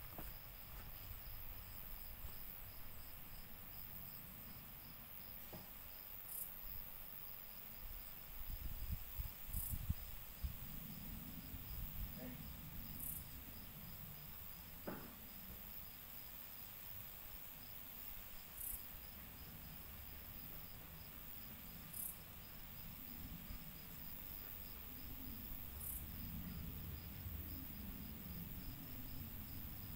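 Insects chirping steadily in a fast, even pulse, with a short higher-pitched buzz every three or four seconds. Low rumbling comes and goes around ten seconds in.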